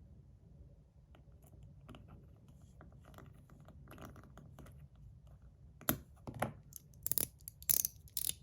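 Faint small scratching and ticking of a screw being driven back into a metal 01 EDC slider fidget, then, from about six seconds in, a run of loud sharp metallic clicks, about two a second, as the slider is pushed along its mechanical liner, its spring-loaded balls clicking along the track.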